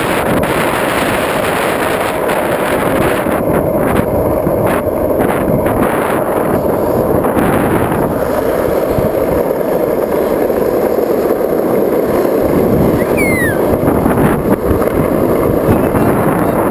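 Skateboard wheels rolling fast downhill on asphalt, with heavy wind buffeting on the handheld camera's microphone, loud and steady. About three-quarters of the way through there is a brief falling squeal.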